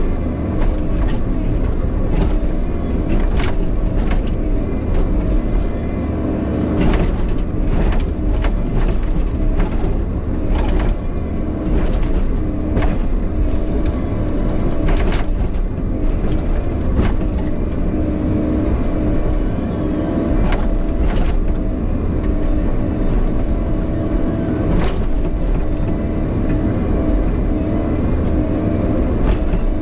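Bobcat E50 compact excavator's diesel engine running steadily as it digs, with repeated sharp clanks and scrapes of the steel bucket against rock.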